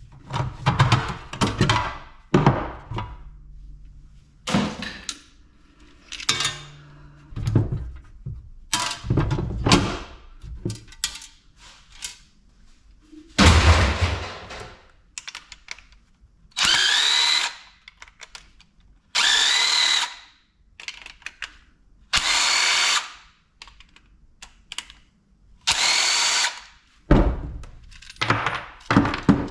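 A power drill run in four short bursts of about a second each in the second half, its whine rising in pitch as it spins up. Before that, clattering and knocking of scrap parts being handled, with one heavier thud about halfway through.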